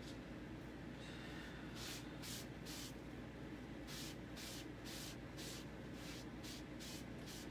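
A cloth towel rubbing chalk paste off a stencil transfer in quick back-and-forth strokes: faint swishes about twice a second, starting about two seconds in.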